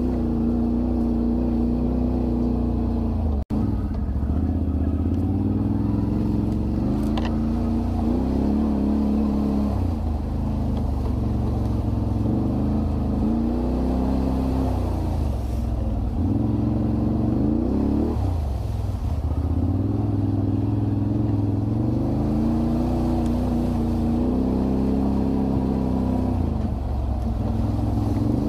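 ATV engines running and revving, their pitch rising and falling again and again as the quads ride rough trail. The sound cuts out for an instant about three and a half seconds in.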